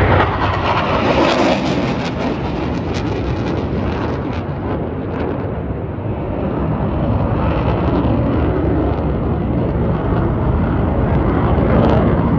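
Aircraft engine noise as a plane flies over: a loud, continuous rush that eases a little midway and builds again near the end.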